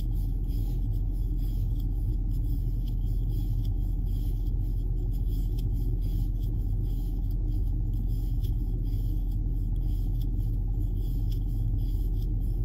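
A steady low hum of background noise, with faint, irregular scratchy ticks from a crochet hook drawing cotton yarn through loops as a foundation chain is worked.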